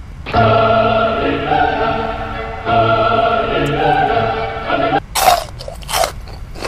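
Operatic, choir-like singing: two long held phrases on sustained notes. Near the end come two short, loud noisy bursts about a second apart.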